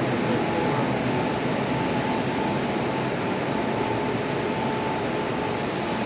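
Steady drone of a standing Humsafar Express train's power car, its generator sets and cooling fans running behind louvered grilles, with a steady whine through it.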